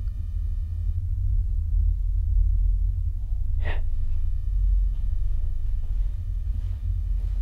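A steady low rumble throughout, with a faint high electronic whine, and one short, sharp intake of breath a little past the middle.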